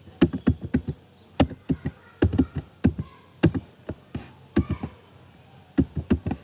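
Computer keyboard typing: quick runs of keystroke clicks in short bursts, with pauses of about a second between bursts.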